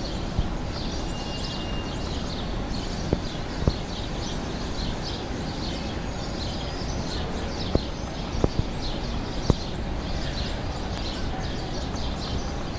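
Small birds chirping over and over above a steady rumble of city background noise, with a few sharp clicks in the middle of the stretch.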